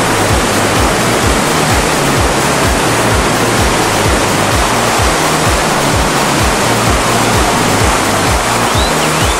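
Loud, steady roar of heavy whitewater rapids as a raft runs through, with background music carrying a steady bass beat.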